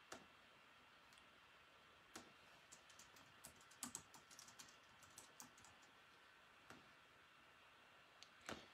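Faint typing on a computer keyboard: a quick run of keystrokes in the middle, with a few single clicks before and after.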